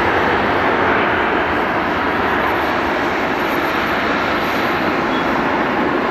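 Boeing 787-9 airliner's jet engines running just after landing, a loud steady rush with no rise or fall.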